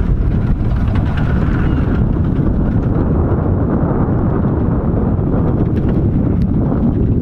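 RH&DR No.8 Hurricane, a 15-inch gauge 4-6-2 steam locomotive, running past under steam, heard as a loud, steady low rumble with no distinct exhaust beat.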